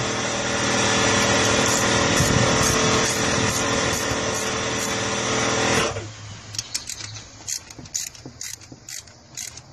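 A motor runs with a steady hum, then cuts off suddenly about six seconds in. After it stops come scattered metallic clicks and taps of wrenches working the bolts of a valve spring compressor on the engine's valvetrain.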